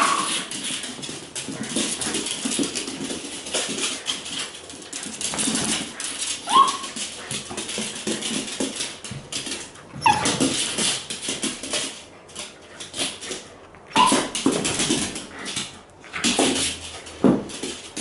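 Wire fox terrier whining and yelping, with a few short barks, worked up over parrots it wants but cannot reach. Sharp rising yelps stand out several times amid continual whimpering.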